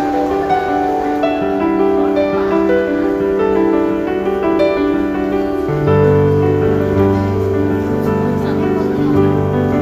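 Instrumental background music of held notes, with deeper bass notes coming in about six seconds in.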